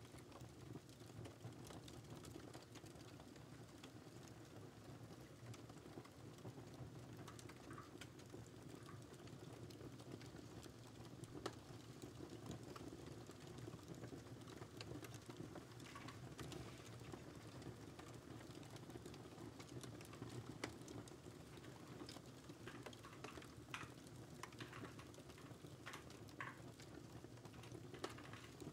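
Faint typing on a computer keyboard, its key clicks coming in thicker runs near the end, over a steady crackling fireplace fire.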